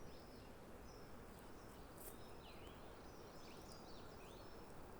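Faint birds chirping in forest: many short calls, some sweeping down in pitch, repeating and overlapping over a steady low hiss.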